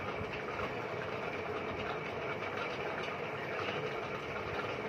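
Steady whirring noise of a running room fan, unchanging throughout.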